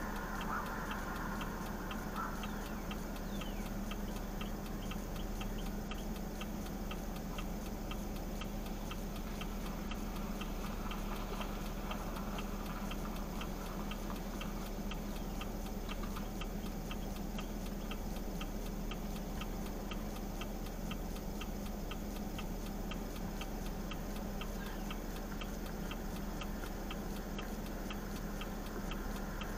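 A vehicle's turn-signal flasher clicking evenly, over a steady low engine hum.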